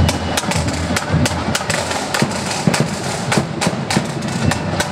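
Marching band drums: side drums and bass drum beat out a steady march rhythm of sharp, crisp strokes over low thuds.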